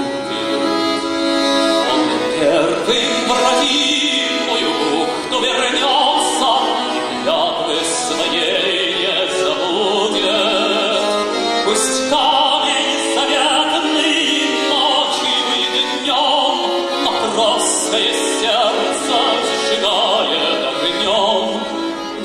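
A man singing a song with instrumental accompaniment.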